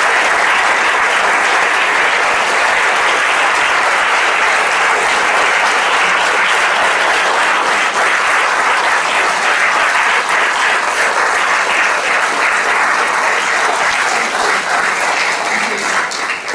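An audience applauding steadily, tapering off near the end.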